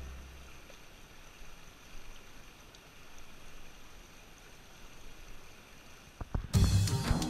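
Faint, even rush of a shallow stream running over rocks. About six and a half seconds in, rock music with guitar and drums cuts in loudly over it.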